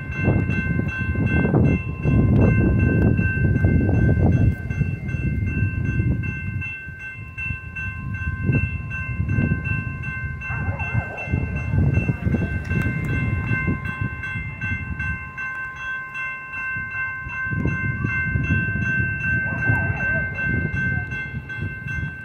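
Railroad crossing warning bell ringing continuously while the signals flash and the gates come down, over a low rumble that is loudest in the first few seconds.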